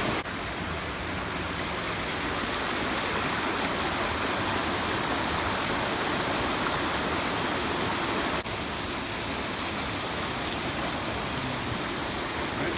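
Steady rushing of a fast-flowing river or waterfall, with two sudden momentary breaks where the recording cuts.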